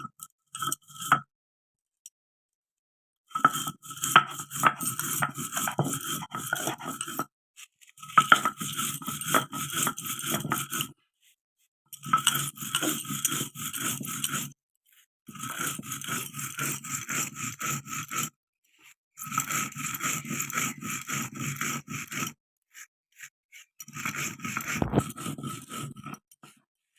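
Electric mixer grinder grinding dry-roasted whole spices (coriander, cumin, panch phoron, dried red chillies) to powder, run in six pulses of about three to four seconds with short pauses between, the spices rattling in the jar.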